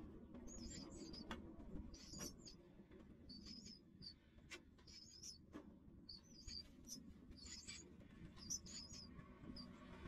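Nestling songbirds begging in the nest: faint, high-pitched cheeps repeating roughly twice a second throughout.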